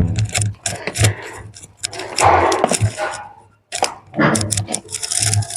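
Irregular knocks and clatters of things being handled, with a longer rustling, scraping noise about two seconds in.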